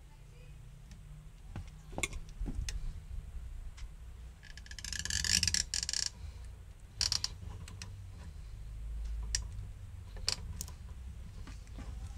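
Scattered plastic clicks and knocks from a BMW E36 fuel pump and level sender assembly being handled and unlatched in the tank opening, with a short scraping rustle about five seconds in, the loudest moment.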